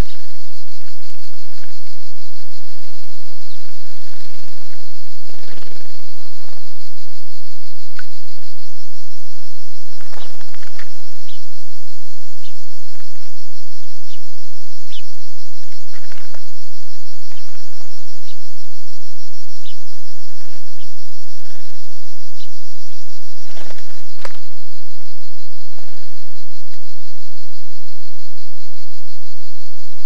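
Cicadas buzzing in a steady, unbroken high drone. Scattered short rustles and a few brief high chirps come and go over it.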